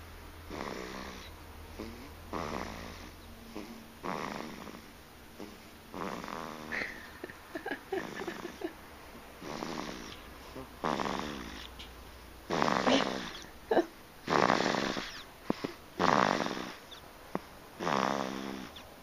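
Sleeping baby snoring, one snore with each breath about every one and a half to two seconds, growing louder in the second half.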